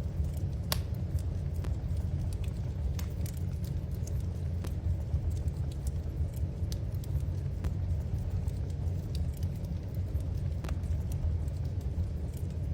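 Wood fire crackling in a fireplace: a steady low rumble with sharp pops and snaps scattered irregularly, a louder pop under a second in.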